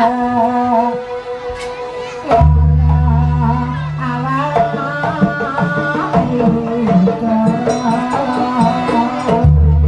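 Live Javanese jaranan music: hand drums under a held, wavering melodic line, with a deep bass tone coming in about two and a half seconds in and again near the end.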